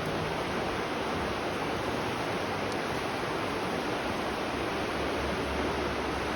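Steady rush of flowing spring water, an even wash of noise that does not change.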